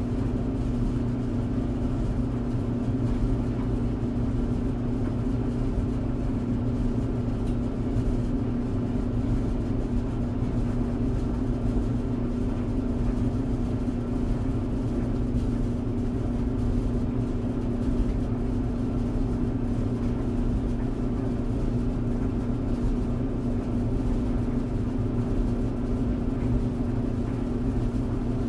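Clothes tumble dryer running steadily: an even motor hum with a low rumble from the turning drum.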